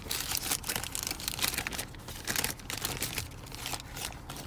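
White deli paper wrapping crinkling and rustling in irregular crackles as a large sub sandwich is unwrapped by hand.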